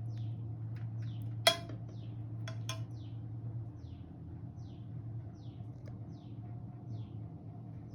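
A utensil strikes a dish with a sharp ringing clink about one and a half seconds in, then clinks twice more a second later. Under it a bird gives short falling chirps about twice a second, over a low steady hum.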